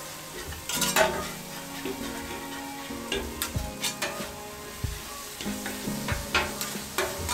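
Scallops with butter and garlic sizzling on a hot flat-top griddle, stirred and scraped with a metal spatula and fork, with repeated sharp clinks of the utensils on the griddle.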